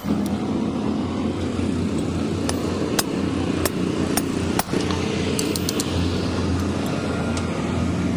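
A steady low mechanical drone, like a motor running, with a few sharp clicks or taps scattered through it and a quick run of them a little past the middle.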